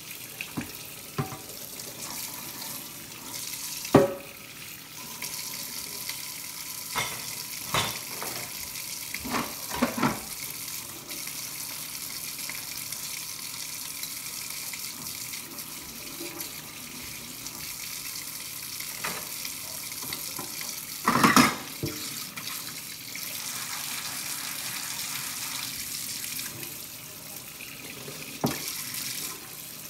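Kitchen faucet running steadily into the sink while dishes are scrubbed and rinsed under the stream, with a few short clinks and knocks of dishware, the loudest clatter about two-thirds of the way through.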